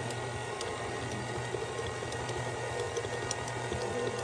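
Electric stand mixer running at a steady speed, its flat beater churning flour and cocoa powder into soft cookie dough in a steel bowl: a constant motor hum with a few faint ticks.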